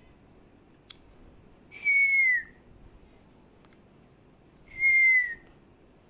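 African grey parrot whistling: two loud, clear whistled notes about three seconds apart, each held steady and dipping in pitch at the end.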